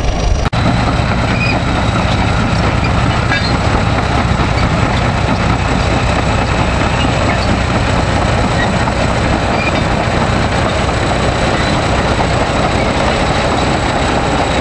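Caterpillar D7 crawler bulldozer's diesel engine running steadily with a deep, even rumble, briefly cut about half a second in.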